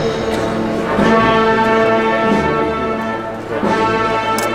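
Brass band playing a slow processional march in held, sustained chords.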